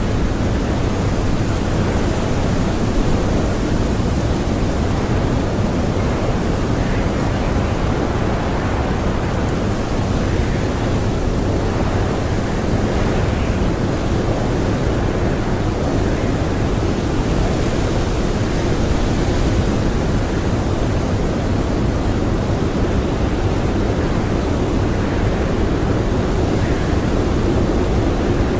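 Blizzard wind blowing hard and steadily, a dense rushing noise with gentle swells in strength.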